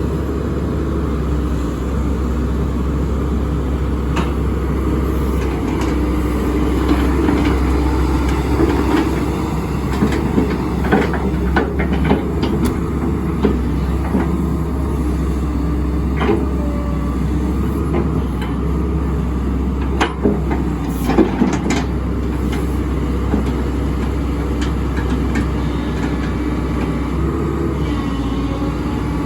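Hyundai R130LC-3 13-tonne excavator's diesel engine running steadily with a deep hum. Scattered sharp metallic clanks and knocks come through the middle stretch.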